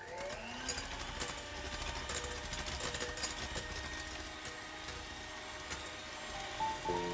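Electric kitchen mixer motor spinning up over the first second, then running steadily, with light clicking throughout.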